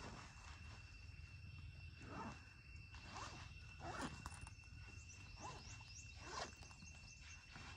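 Faint tropical forest ambience: a steady thin high insect-like whine, a low rumble of wind, and scattered short rising chirps from wild animals, several in a row from about two seconds in.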